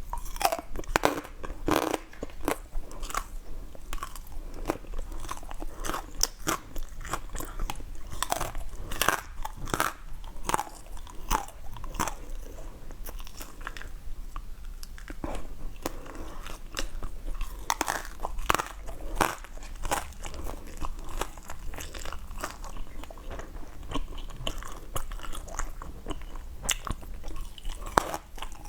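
Close-miked eating: a person bites and chews crunchy food, giving many irregular crisp crunches and crackles.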